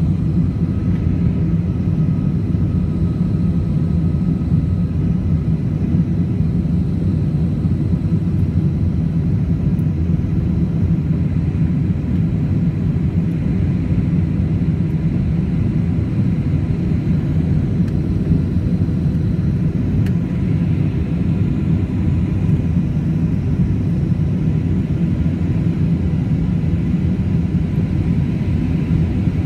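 Airbus A321 cabin noise during the climb after takeoff: a steady low rumble of engines and airflow heard from a window seat over the wing, with a faint high tone above it.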